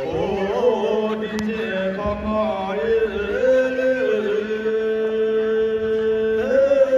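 A man singing solo into a handheld microphone, a slow melody of long held notes. The longest note is held steady for about three seconds before the voice steps up in pitch near the end.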